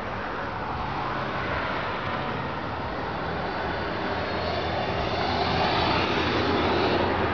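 Steady motor-vehicle engine noise with a low hum, growing gradually louder over several seconds.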